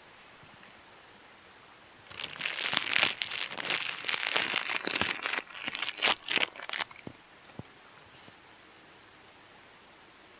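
Crinkly packaging being handled: a dense crackling of many quick clicks that starts about two seconds in, lasts about five seconds, and ends with a few separate clicks.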